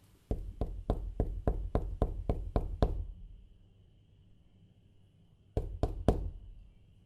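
Knocking on a door with the knuckles: a quick run of about ten knocks, roughly four a second, then a pause and three more knocks.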